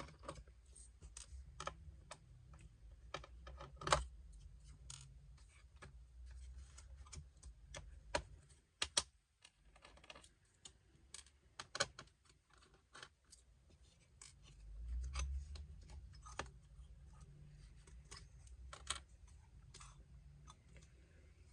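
Scattered small clicks and taps of a screwdriver and laptop parts being handled inside an open laptop, with a few soft bumps.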